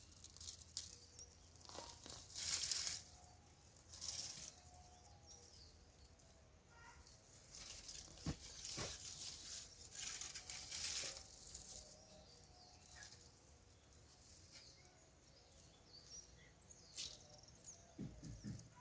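Soil and dry potato plant matter rustling and scraping in irregular bursts as potatoes are dug out of a raised bed.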